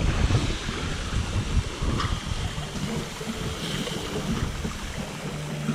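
Wind buffeting the microphone over the wash of water along a sailboat's hull as it sails, with a low steady hum coming in about three seconds in.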